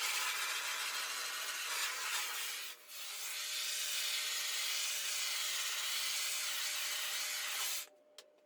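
A handheld power tool running steadily, dipping briefly about three seconds in, then switched off near the end, followed by a couple of light clicks.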